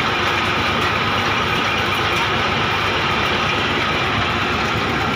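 Engine of a tubewell drilling rig running steadily at an even speed, with a faint steady whine above the engine noise.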